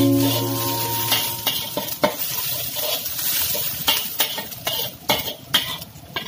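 Metal spatula scraping and clinking against a steel wok in irregular strokes while chopped shallots, chillies and dried anchovies sizzle in a little oil.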